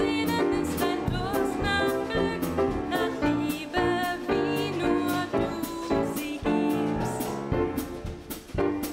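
A woman singing a song with grand piano and drum kit accompaniment, cymbal strokes keeping a steady beat. The voice eases off near the end while the instruments carry on.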